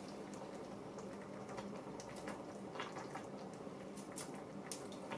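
Faint, scattered crinkles and light clicks of a plastic food bag being handled, over a steady low hum.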